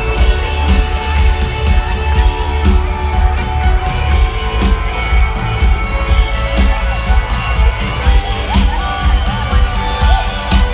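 Live rock band playing loudly through a concert PA, with heavy bass and steady drum hits.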